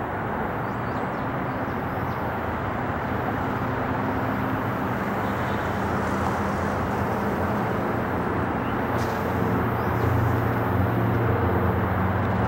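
Boeing 787 Dreamliner jet airliner on approach, its engines a steady distant rumble that grows slowly louder, with a low hum strengthening in the last few seconds.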